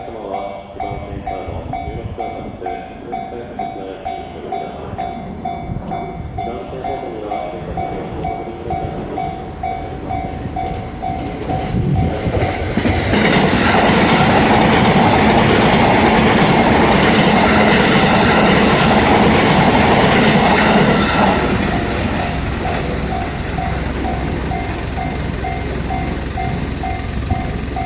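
Japanese level crossing alarm ringing its repeating bell, about two strikes a second, while a Joban Line train passes, loud for about eight seconds from about thirteen seconds in. The bell goes on ringing after the train has passed.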